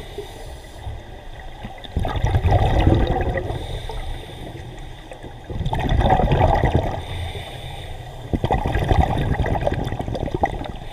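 Scuba regulator bubbling as the diver wearing the camera breathes out: three bubbling gushes a few seconds apart, with quieter inhale gaps between.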